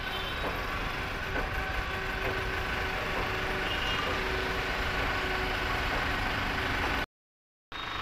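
Steady engine-like hum with a few faint knocks in the first two seconds; the sound cuts out completely for about half a second near the end.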